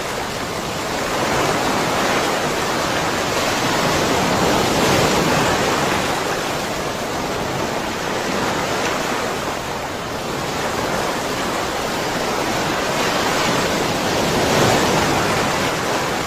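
Steady rushing water, swelling and easing slowly every few seconds.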